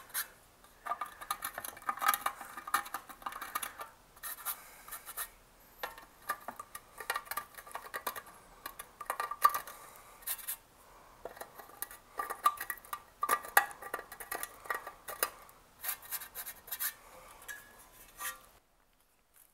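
A small brush sweeping metal drill chips off a powder-coated metal chassis: scratchy brush strokes with small metallic clinks from the chips, in irregular bursts. The sound cuts off suddenly near the end.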